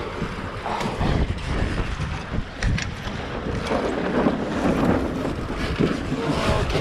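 Wind buffeting the microphone over water slapping and rushing along the hulls of a Prindle 18.2 sailing catamaran under way, with a couple of sharp clicks about halfway through.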